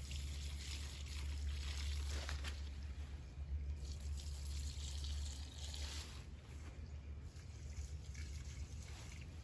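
Liquid fertilizer (pond water mixed with fish emulsion and Epsom salt) being poured from a container onto garden soil, a trickling splash that swells and eases off over several seconds.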